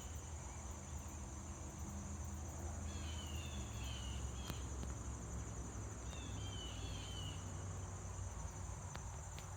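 Steady high-pitched insect trilling, with a small bird's short twittering call twice, about three and six and a half seconds in, over a low rumble.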